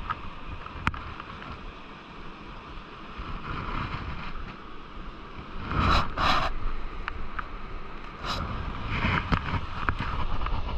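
Wind buffeting the microphone over steady surf, with scattered clicks and rustles of handling; the loudest are two short scuffs about six seconds in and another near eight seconds.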